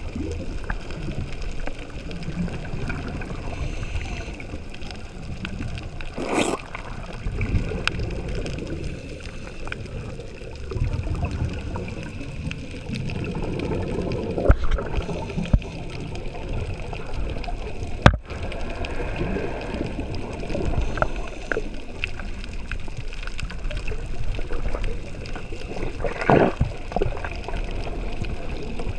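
Underwater sound from a camera in its waterproof housing: a steady, muffled rumble of water with gurgling and bubbling. Short bubble bursts come about six seconds in and again near the end, and a single sharp click comes about two-thirds of the way through.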